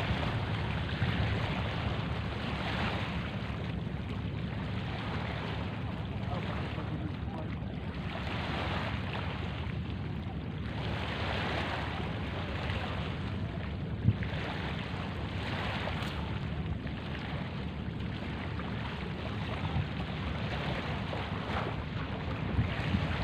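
Wind buffeting the microphone over small waves washing onto a sandy shore, the wash swelling and fading every few seconds, with a single sharp click about halfway through.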